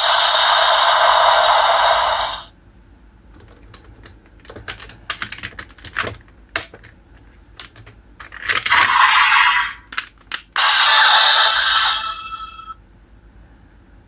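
Electronic sound effects from a bootleg Raise Buckle toy's small speaker: a loud, harsh electronic blare that cuts off about two seconds in, then scattered plastic clicks and snaps from the toy's parts. Two more short harsh electronic bursts follow, one in the middle and one near the end.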